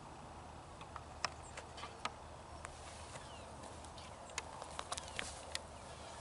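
Footsteps on a gravel driveway: faint, irregular small clicks of stones underfoot over a low steady background.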